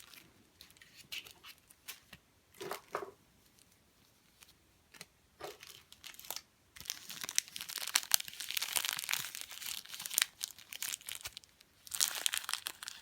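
Plastic packaging crinkling and rustling as it is opened, with scattered clicks and crackles that are densest from about seven to ten seconds in.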